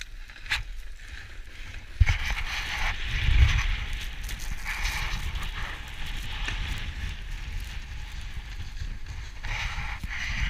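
Wind buffeting an action camera's microphone together with the hiss of a snowboard sliding over packed snow, starting suddenly about two seconds in and running on as a steady rush.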